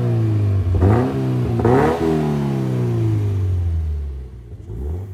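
Toyota GT86's 2.0-litre flat-four through a non-resonated Cobra cat-back exhaust, revving up sharply twice and falling away slowly each time, then fading near the end.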